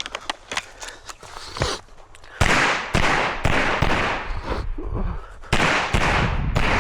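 Handgun shots fired at a steady pace, about one every half second, each with a short echo. After a brief pause about five seconds in, a second string of shots follows.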